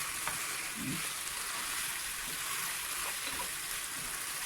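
Chicken pieces sizzling steadily in sauce in a frying pan.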